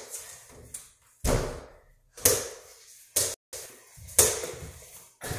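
Mini basketball bouncing: about five sharp thuds, roughly a second apart, each dying away quickly.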